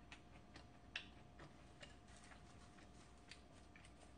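Near silence with faint, scattered clicks from eating: chewing and handling food at the table, the clearest about a second in.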